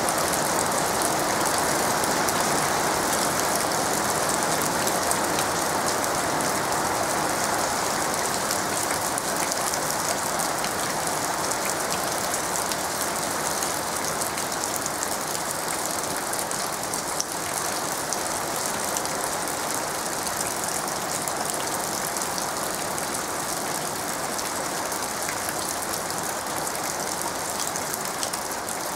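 Steady rain falling on leaves and undergrowth: a dense, even patter of many drops, easing slightly toward the end.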